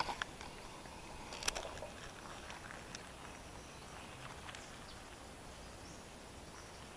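A few sharp clicks and knocks from fishing rod and reel handling during a cast, the loudest about one and a half seconds in, over a quiet steady outdoor hiss.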